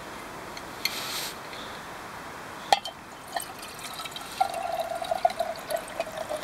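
Water scooped from a shallow pit with a steel cup, a sharp clink, then poured into the narrow neck of a canteen: splashing and gurgling with a steady tone as the canteen fills over the last two seconds.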